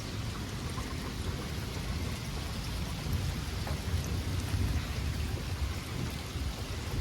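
Heavy rain falling steadily, with a low, uneven rumble of thunder underneath.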